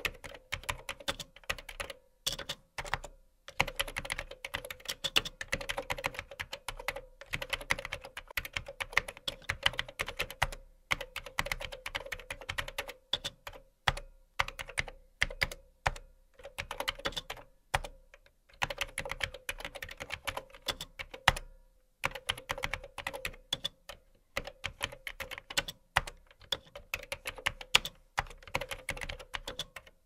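Typing on a computer keyboard: quick runs of key clicks broken by short pauses every second or few.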